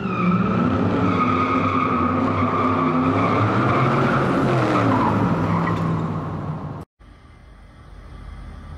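Tyre-squeal sound effect with a car engine revving, rising and falling in pitch for about seven seconds, then cutting off abruptly; after it only a quiet outdoor background remains.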